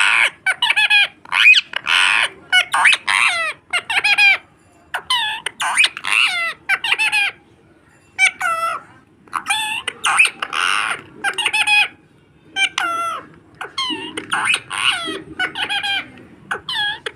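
Parrot calling over and over in runs of short, loud squawks with gliding pitch, broken by brief pauses.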